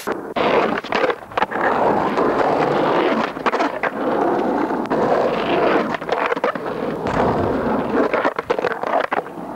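Skateboard wheels rolling over asphalt and brick paving, broken by several sharp clacks of the board snapping and landing during flatground tricks.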